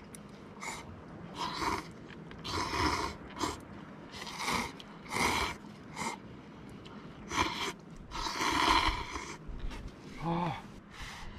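Cup-noodle ramen being slurped: a series of short, breathy slurps about a second apart, with a longer one near the end.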